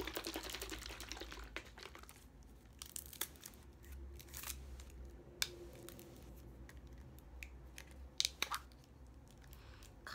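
A paper carton of vegetable juice being shaken, then crinkling and tearing as a straw is unwrapped and the carton's peel-off lid is pulled open. Dense rattling rustle comes first, then scattered small clicks, with a few louder snaps near the end.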